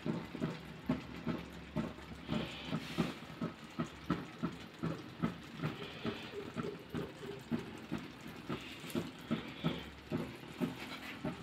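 Chicken kabsa rice cooking down in a pan on the stove, bubbling and crackling with irregular soft pops, about two or three a second, over a steady low hiss of steam.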